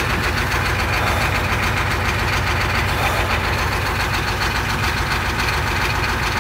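Ford F-250's 7.3-litre IDI V8 diesel idling steadily, with a rapid, even knock, a short while after a cold start.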